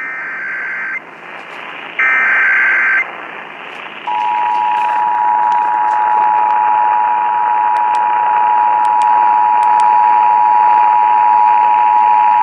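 Emergency Alert System broadcast over radio: two one-second bursts of the SAME digital header's warbling data tones about two seconds apart, then from about four seconds in the steady two-tone EAS attention signal (853 and 960 Hz), all over a constant radio hiss.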